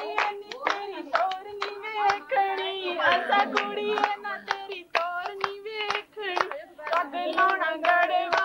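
Women singing a Punjabi boli over steady group hand-clapping, about three claps a second, in the rhythm of a giddha dance.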